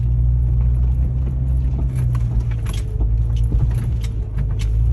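2001 Jeep Cherokee XJ's engine pulling steadily in four-wheel-drive low range on a loose gravel climb, a deep drone with scattered clicks and rattles over it.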